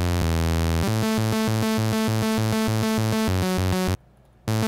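Xfer Serum 2 software synth playing a chord progression on a plain init patch, from its built-in clip sequencer: sustained chords over a low note that pulses about four times a second. Playback cuts off about four seconds in and starts again half a second later.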